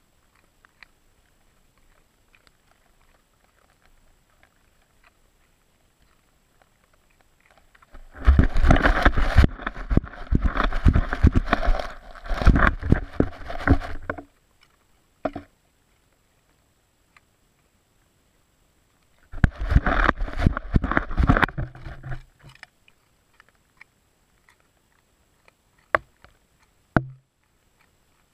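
A Vizsla dog gnawing and crunching a raw carrot right at the microphone. There are two spells of dense crunching, the first about six seconds long and the second about three, with quiet between them and a couple of single knocks near the end.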